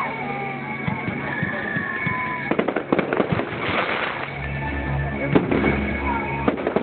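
Fireworks display: repeated bangs and crackling from bursting shells. Music with a steady low bass comes in about two-thirds of the way through.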